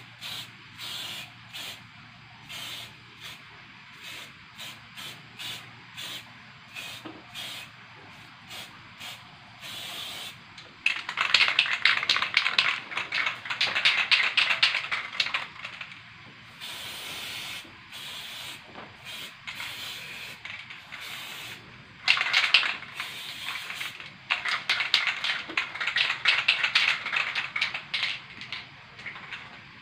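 Aerosol spray paint can hissing, first in many short quick puffs, then from about eleven seconds in as longer sprays lasting several seconds each.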